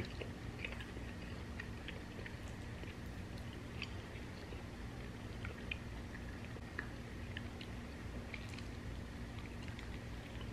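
Faint chewing of thin-crust pepperoni pizza, small scattered mouth clicks and crunches over a low steady background hum.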